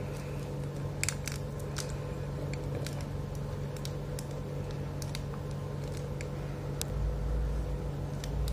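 Scattered light clicks and taps as fingers work the lifting back wing flaps of a King Arts diecast Iron Man Mark 46 figure, with a low rumble of handling near the end.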